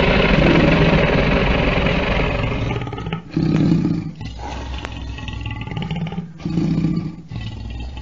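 Lion roaring: one long, loud roar for about the first three seconds, then a series of shorter, quieter grunts about a second apart.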